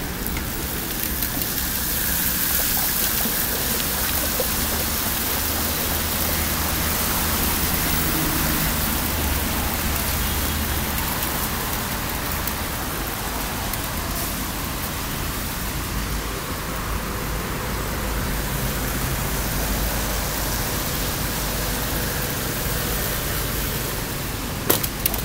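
Steady hiss and wash of bicycle tyres running through shallow floodwater, with air rushing past as the bike is ridden. Two short sharp clicks come near the end.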